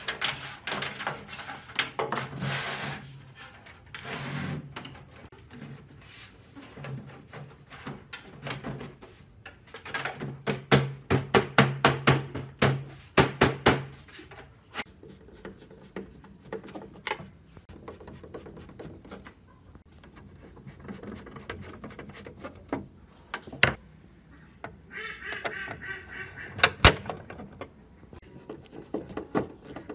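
Plastic back cover of an old Panasonic CRT television being fitted onto the set and screwed down: repeated knocks, clicks and scraping of the plastic casing, with a dense run of rapid knocks about ten seconds in and short squeaky rubbing near the end.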